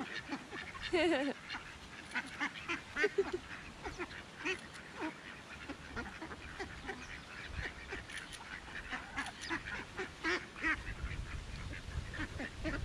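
A flock of mallard and white domestic ducks quacking and chattering over one another, a steady run of short calls from hungry birds crowding in to be fed.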